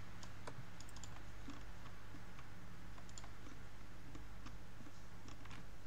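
Faint, irregular clicking of computer keyboard keys being typed, over a steady low hum.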